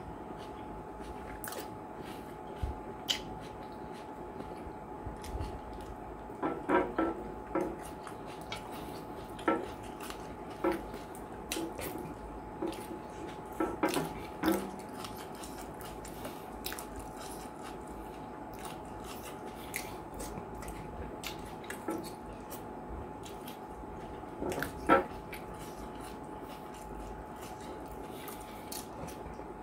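A person eating banku and okra soup with his fingers: scattered wet smacks, squishes and chewing, some bunched together. Under them is a steady faint hum.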